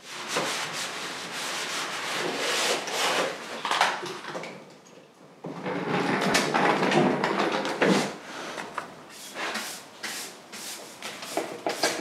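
Hand rubbing and scraping strokes, like sanding or scrubbing, repeated in quick runs, with a short lull about four and a half seconds in.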